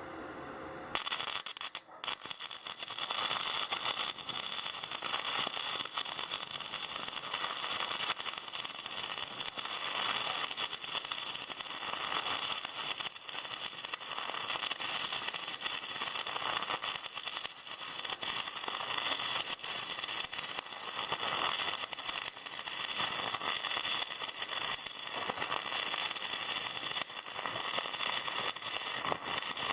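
Electric arc welding: the arc strikes about a second in, breaks off for a moment, then runs as a steady dense crackle while a weld bead is laid.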